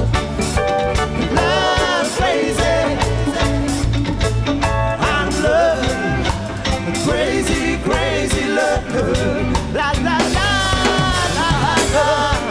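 Live band playing a song: a man singing lead over electric guitar and electric bass.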